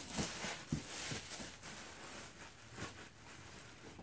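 Cardboard box and packing material rustling and scraping while a small engine is worked out of its box, with a few light knocks.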